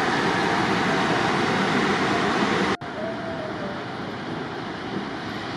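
Steady city traffic noise with no distinct events. It cuts off sharply about three seconds in and carries on at a lower level.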